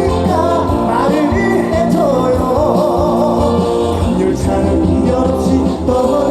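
Live trot song: band accompaniment with a melody line in heavy vibrato.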